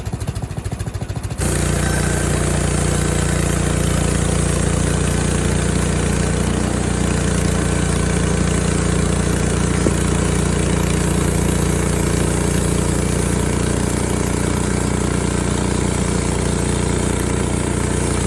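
Frontier OS23 portable band sawmill's small gas engine, idling, then throttling up about a second and a half in to run the band blade, holding a loud, steady drone as the mill saws through a barn beam.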